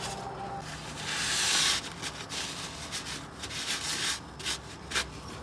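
Shop towel rubbing and wiping spilled oil off the engine's metal oil pan, in several strokes, the longest about a second in.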